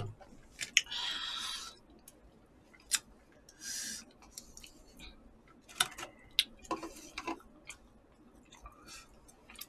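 Eating sounds: scattered sharp clicks and taps of chopsticks and spoons against plastic and paper takeout containers, with two short hissing bursts of slurping or chewing, about a second in and near four seconds.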